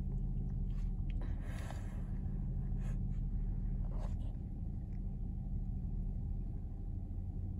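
Steady low engine drone, with a few faint rustles and taps from handling the phone.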